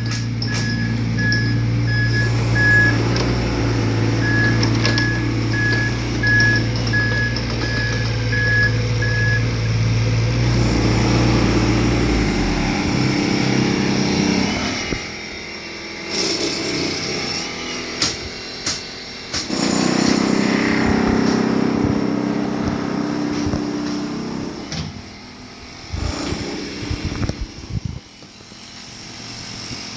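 Diesel construction machinery running, with a back-up alarm beeping about twice a second that stops about nine seconds in. Afterwards the engine rises and falls under load, with sharp metal clanks at times.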